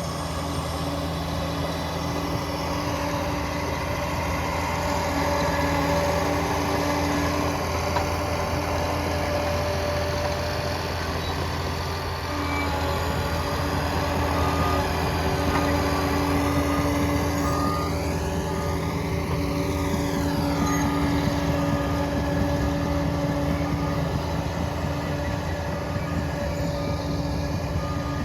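Liebherr PR 746 crawler dozer's diesel engine running steadily, with a faint rising-then-falling whine about two-thirds of the way through.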